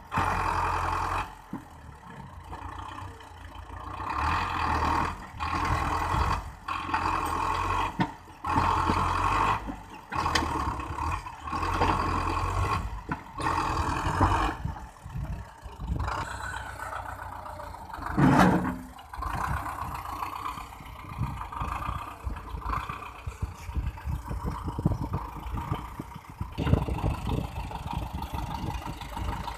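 Belarus tractor's diesel engine running under load, revving up and falling back every few seconds as the front loader lifts and dumps soil, with a sharper, louder surge about 18 seconds in.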